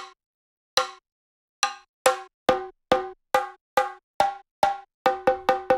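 Soundtrack of a single pitched, ringing hand percussion instrument, struck in a rhythm that speeds up. The first strikes come almost a second apart, then about two a second, with a quick run of strikes near the end.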